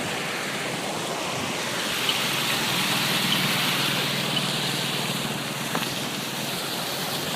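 Waterfall: a steady rush of falling water, swelling a little midway.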